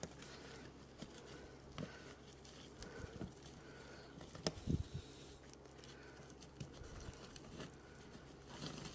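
Faint rustling and crinkling of plastic twine being pulled and knotted around a couch's zigzag metal springs. Scattered small clicks and knocks, with one sharper click about halfway through.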